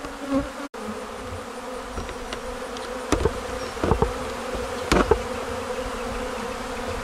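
Honey bees buzzing in a dense, steady hum as they mob opened, emptied hive boxes in a robbing frenzy brought on by a long nectar dearth. A few sharp knocks come about three, four and five seconds in.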